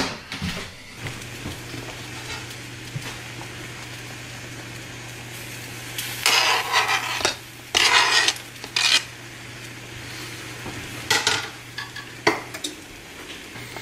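Pieces of raw fish scraped off a plastic cutting board into a stainless steel pot, in several short scraping bursts with the clatter of board and utensil against the pot rim, over a steady low hum.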